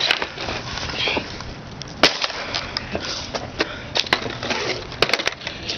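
Wooden skateboard decks popping and slapping down on concrete: sharp clacks every second or two, three in quick succession about five seconds in, over the steady rumble of wheels rolling on the pavement.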